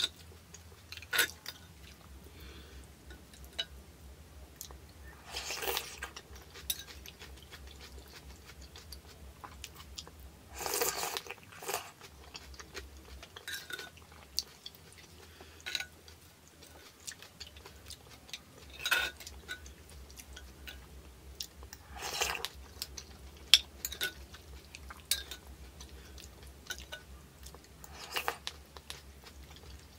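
Close-up eating sounds of noodle soup: a metal spoon clinking against a ceramic clay pot in scattered clicks, with about five short slurps of broth and noodles and soft chewing in between.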